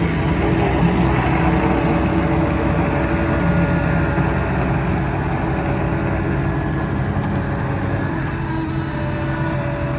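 John Deere 316GR skid steer's diesel engine running steadily, a little louder in the first half and easing slightly about halfway through.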